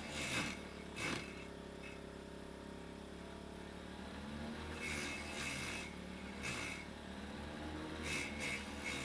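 Water-pump motor driving a homemade vegetable chopper blade, running with a steady hum. Short rough bursts of chopping come about a second in, twice between five and seven seconds, and again near the end, and the motor's pitch sags slightly under the load.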